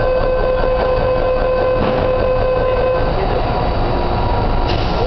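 MTR train's door-closing warning tone: a steady high tone sounding until about three seconds in, then a fainter tone, over the steady low rumble of the train standing at the platform. A sharp click comes near the end.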